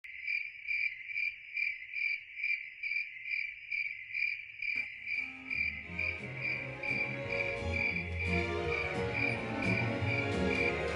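Crickets chirping in an even, steady pulse, a little over two chirps a second. About five seconds in, music comes in underneath and builds.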